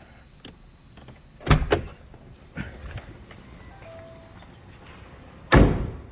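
Car door being worked: a double clunk about a second and a half in, a lighter knock, then a loud door slam near the end.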